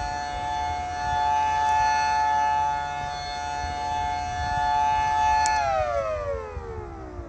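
Federal Signal Thunderbolt 1000A two-tone civil defense siren on a short test run, holding a steady two-note chord at full pitch while its loudness swells and fades. About five and a half seconds in it is cut off and winds down, both notes falling together.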